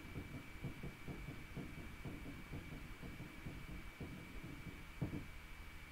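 Faint room tone: a low, irregular rumble with a thin steady high-pitched whine, and one soft thump about five seconds in.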